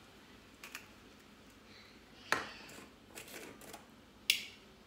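Glass jars and a plastic lid clicking and knocking as they are handled on a kitchen countertop while a salt jar is opened: a few separate sharp clicks, the loudest about two and four seconds in, with softer rattles between.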